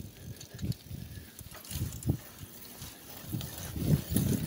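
Bicycle ridden over a rutted dirt track: irregular low bumps and short rattling clicks from the bike's frame and tyres.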